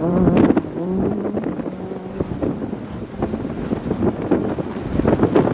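Rally car engine revving hard as the car pulls away on gravel, its note wavering at first and then holding steady as it fades into the distance. Wind buffets the microphone, and short crackles and rumble follow.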